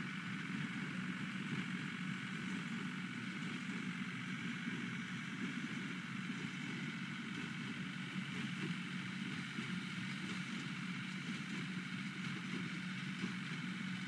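John Deere 5320 tractor and hay baler working across the field, heard from a distance as a steady mechanical drone with no change in pace.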